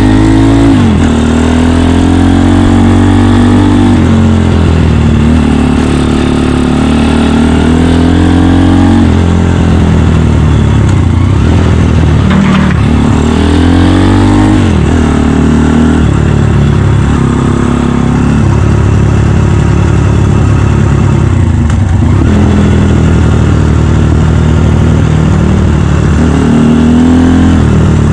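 Honda Dax's 150cc single-cylinder four-stroke engine running under way, its revs climbing and dropping back several times with throttle and gear changes.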